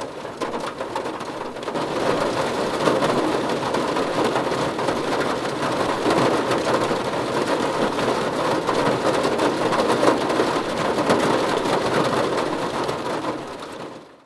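Steady rain falling on a surface, a dense hiss that grows louder about two seconds in and then fades out at the very end.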